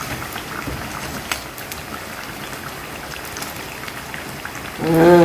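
Oil sizzling and crackling steadily as vegetable fritters deep-fry in a pan, with a couple of sharp clicks from metal tongs about a second in.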